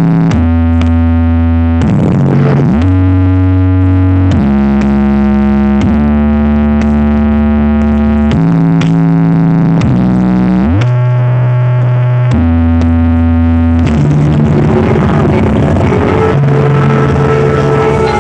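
Electronic music with deep synthesizer bass played loud through a large carnival sound system: long held bass notes that slide from one pitch to the next every second or two, with a busier, noisier texture from about two-thirds of the way in.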